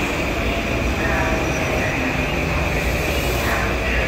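Metro-North electric multiple-unit commuter train running past close by: a steady loud rumble of wheels on the rails with faint gliding tones above it.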